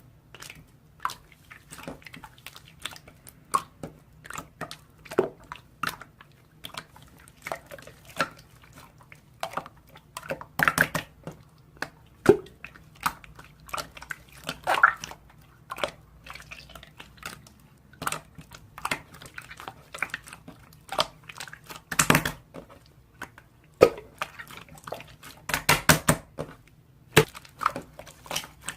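Irregular clicking and crackling sounds, a few a second, some louder than others, over a faint steady hum.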